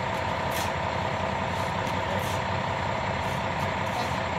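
Concrete mixer truck's diesel engine running steadily while its drum discharges concrete down the chute, with a steady mid-pitched whine over the low rumble and a few short hisses.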